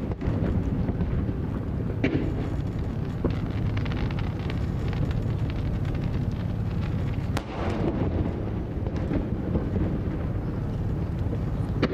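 Aerial fireworks bursting: a continuous rolling rumble of booms, with sharper cracks about two seconds in, past the middle, and near the end.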